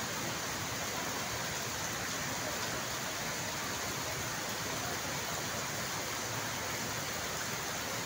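Steady rushing of a flash-flood surge: muddy floodwater pouring down a waterfall river in spate.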